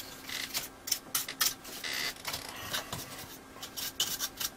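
A small brush scrubbing loose dust off an old valve television chassis, in quick, irregular scratchy strokes.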